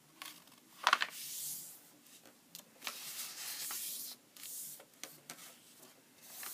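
A sheet of origami paper rustling as hands fold it and slide and smooth it against the tabletop, in several short bursts, the loudest a sharper crackle about a second in.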